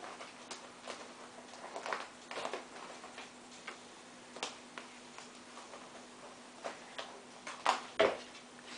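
A cat's claws hooking into and scratching on denim jeans as it clings to and climbs a person's leg: irregular clicks and short scratches. Near the end there is a louder cluster of scrapes and a thump as the cat lets go and drops to the wooden floor.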